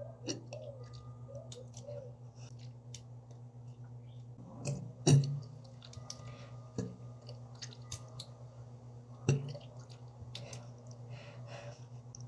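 Wet mouth clicks and smacks, irregular, with louder ones about five seconds in and again about nine seconds in, over a steady low hum.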